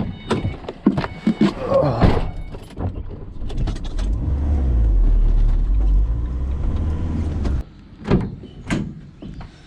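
Knocks and clattering, then a vehicle running with a steady low rumble for about four seconds that cuts off suddenly, followed by a couple of knocks.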